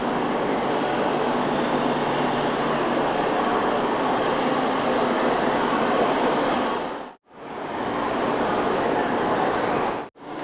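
Steady ambience of a large railway station concourse above the platforms: an even wash of train and hall noise. It drops out briefly twice, about seven seconds in and again near the end.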